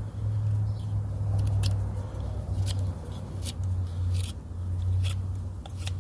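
A carving knife slicing thin shavings from softwood in about six short scraping cuts, over a steady low hum.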